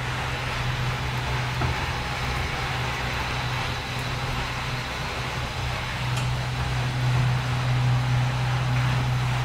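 Machinery running with a steady low hum and an even hiss over it, getting a little louder in the second half.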